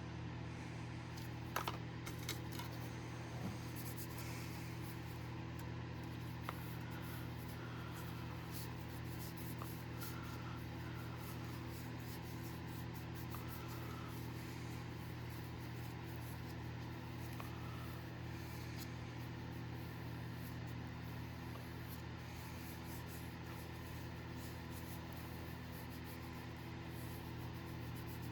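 Steady low hum with a few light clicks and taps about two seconds in.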